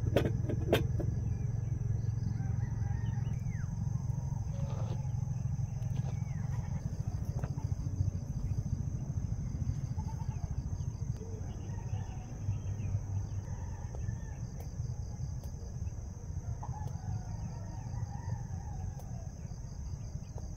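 Rooster crowing and chickens clucking in the background, over a steady low rumble and a steady high-pitched hum. A few sharp clicks come right at the start.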